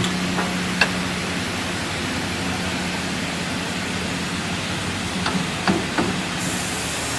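Large double-head aluminium cutting saw running, giving a steady mechanical hum and hiss. There are a few sharp clicks, one about a second in and a cluster near the end.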